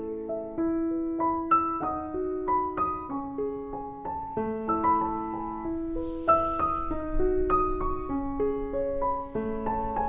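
Background piano music: a slow melody of single ringing notes over held lower notes.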